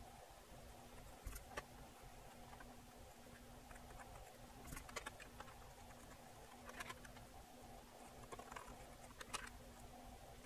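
Near silence, with a few faint, scattered ticks and scrapes from a hot soldering iron tip picking through epoxy on a circuit board, over a faint steady hum.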